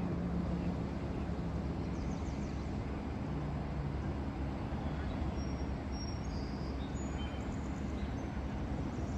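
Steady running noise of a vehicle heard from inside it, with a low hum throughout.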